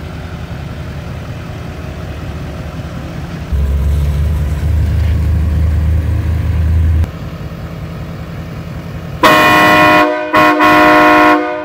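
Aftermarket train horn on a lifted GMC Sierra 2500HD Denali sounding two loud blasts, a chord of several tones, each about a second long with a short break between. Before the blasts there is a low rumble.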